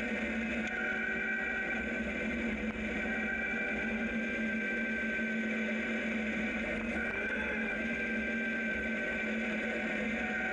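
Zero DSR electric motorcycle under way on a gravel road: a steady electric-drive whine in several pitches that dip slightly and rise again with speed, over the rumble of the tyres on gravel.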